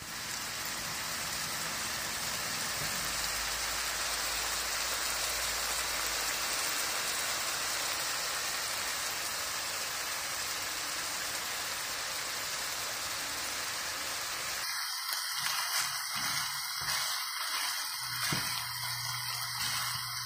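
Ground beef and diced potatoes sizzling in a pot: a steady, even hiss. About three-quarters of the way through, the sound changes abruptly, the hiss thinning out and a low steady hum joining it.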